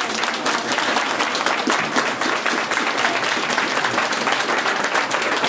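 Audience applauding in a hall, many people clapping steadily together.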